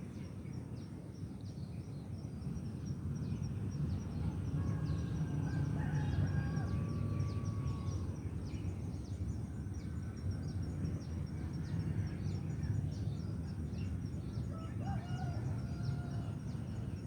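Outdoor ambience with a steady low rumble, dense quick high chirps from small birds throughout, and a few longer pitched calls around the middle and again near the end.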